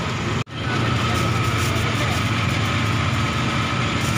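Steady low machine hum with busy street noise over it. It cuts out sharply for a moment about half a second in, then carries on unchanged.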